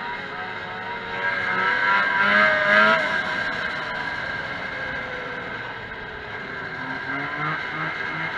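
Vintage 340 cc two-stroke snowmobile engine running at race speed, heard from a camera mounted on its hood. It grows louder and rises in pitch for a couple of seconds about a second in, then eases back to a steadier note.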